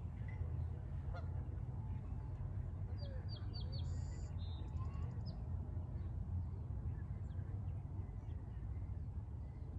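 Wild birds calling over a steady low rumble, with a quick run of short high chirps about three to four seconds in and a few fainter calls scattered around it.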